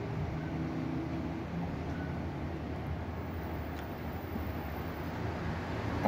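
A steady low background hum, even in level throughout.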